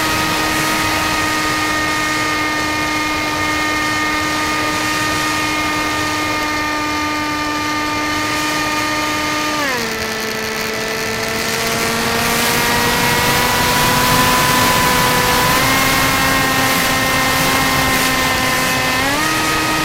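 HawkSky RC plane's electric motor and propeller running with a steady whine. The pitch drops sharply about halfway through as the throttle is eased back, creeps up, then steps back up twice near the end.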